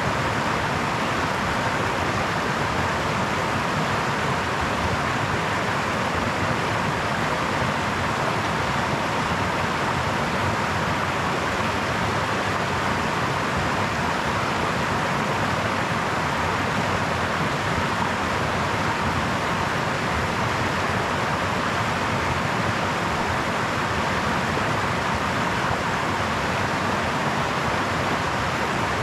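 Brook water flowing over stones in a steady, even rush, with no changes or separate events.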